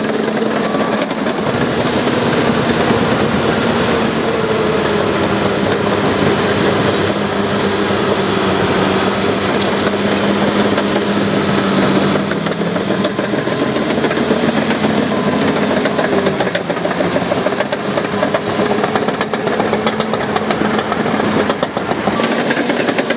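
Heavy diesel construction machine engine running under load, its revs dropping and climbing again about halfway through, then holding steady.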